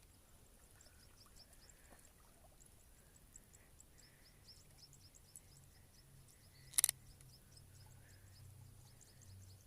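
Quiet outdoor ambience with small birds chirping in quick, repeated high notes, and one sharp click about seven seconds in.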